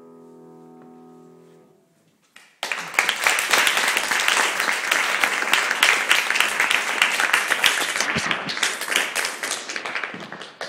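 A grand piano's last chord rings and dies away. After a short silence, audience applause breaks out suddenly and continues.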